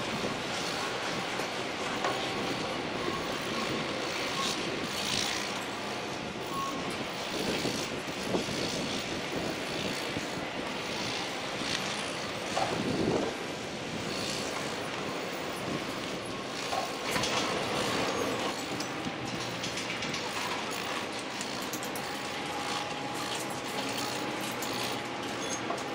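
Construction-site machinery running steadily, with heavy equipment and crane rigging in use, broken by a few short metallic knocks and a brief rising whine about halfway through.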